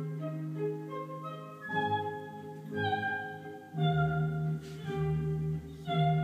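Classical-style instrumental music: a slow melody of held notes over a sustained bass.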